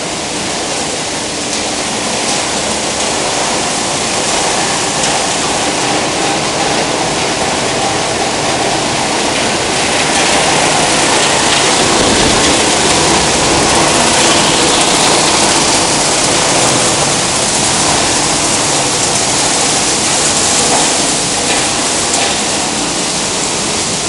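Plastic film washing line running: a steady, loud rush of water and churning machinery, with a faint motor hum underneath.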